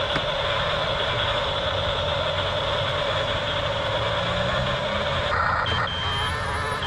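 Toy RC bulldozer running, its electronic diesel-engine sound effect playing steadily through a small speaker. Near the end a reversing-beep effect starts, sounding about once a second.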